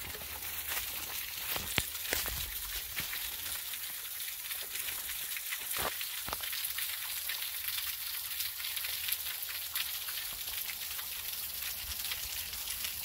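Water dripping and trickling off a rock overhang, many drops pattering on the rocks below in a steady fine crackle, with a few louder taps.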